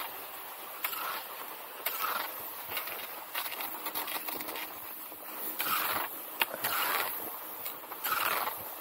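Classic cross-country skis and poles working on groomed snow: rhythmic swishes about once a second as the skier strides, with a few sharp clicks from the pole plants.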